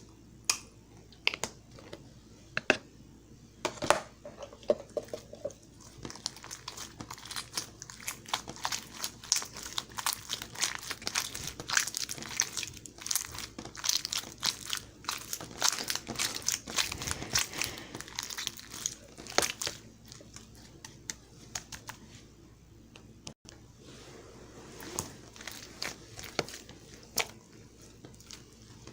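Hands squishing, poking and stretching slime: a run of small sticky pops and crackles, sparse at first, thickest through the middle, then thinning out again.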